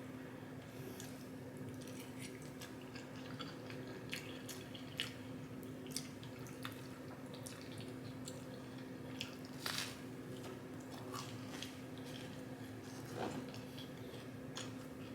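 Close-up mouth sounds of someone eating pasta and meatballs: scattered wet clicks, lip smacks and soft chewing. A steady low hum runs beneath.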